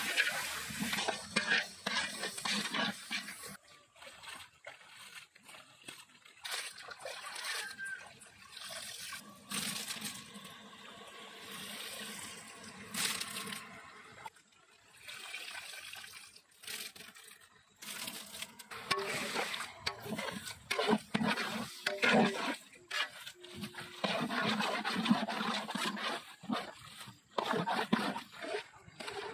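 Long metal slotted spoon stirring and scraping wet chopped goat intestines in a large aluminium pot, with wet slopping sounds coming in irregular bursts.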